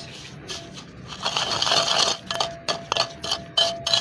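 Wooden pestle grinding and pounding chopped strawberries and sugar in a kundi mortar: gritty scraping with repeated knocks of the pestle, getting louder and busier from about a second in.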